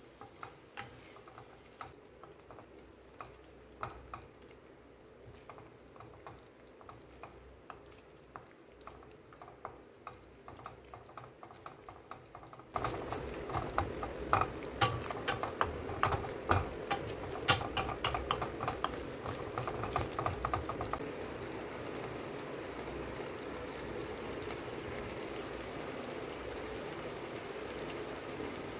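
A wooden spatula stirring thick tamarind paste in a stainless steel pan, with many short clicks and scrapes against the pan over the sound of the paste cooking. About halfway through it all gets suddenly louder and the clicks get sharper. In the last third the stirring stops and only a steady hiss of the simmering paste is left.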